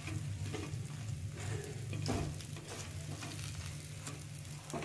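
A dosa sizzling in oil on a hot dosa pan while a metal spoon scrapes red chutney across it in repeated strokes, over a steady low hum.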